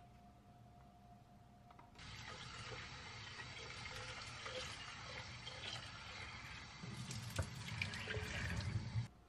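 About two seconds in, a kitchen tap starts running into a stainless steel sink as a new electric pour-over kettle is rinsed out before first use. Near the end the water sloshes out of the kettle and splashes into the sink with a few knocks, then stops suddenly.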